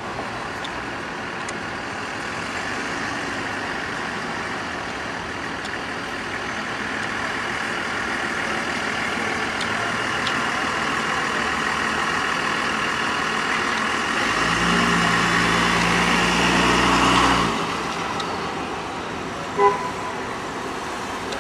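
City street traffic noise, a steady hum of passing cars that slowly grows louder. A large vehicle's engine runs loudly for about three seconds past the middle and cuts off suddenly. A short sharp sound comes near the end.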